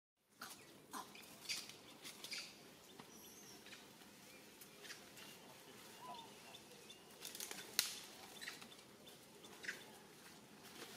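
Quiet outdoor ambience around a troop of macaques on rocks: scattered soft clicks and rustles, the sharpest a little before eight seconds in, and one short high call about six seconds in.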